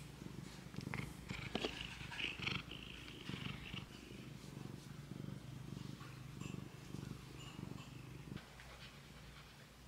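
Domestic tabby-and-white cat purring close up while being petted, with some rustling in the first few seconds.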